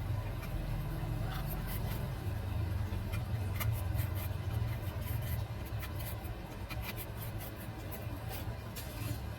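A steady low hum with scattered light clicks and scratches of small tools being handled and scraped at a repair bench.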